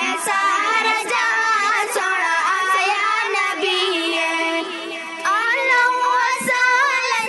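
Young girl's voice singing a naat (devotional praise song for the Prophet), the melody wavering and ornamented, with a long held note in the middle.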